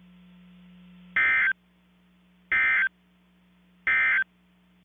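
Emergency Alert System end-of-message data bursts: three short, identical electronic warbling bursts about a second and a quarter apart, marking the end of the broadcast warning. A faint steady low hum runs underneath.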